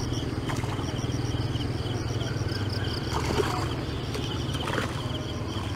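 A steady low engine-like hum with repeated high chirping in short, regular runs, and a few faint sharp clicks or splashes.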